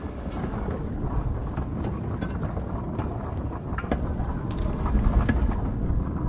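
Hand cart rolling along rails: a steady low rumble of its wheels on the track, with scattered clicks and clanks.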